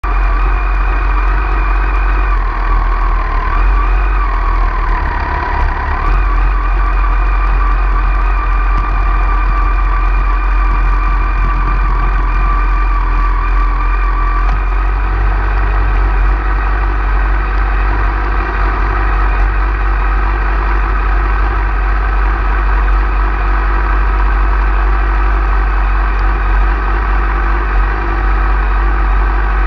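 Motorcycle engine idling steadily, picked up by a camera mounted on the bike itself, with a strong low rumble. The pitch dips briefly about five seconds in, then holds steady.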